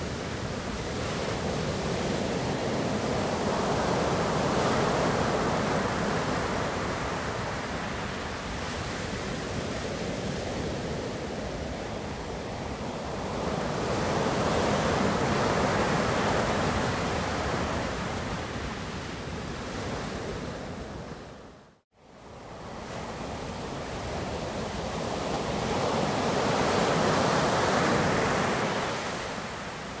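Steady rushing noise that swells and eases three times, roughly every ten seconds, and cuts out to silence for a moment about two-thirds of the way through.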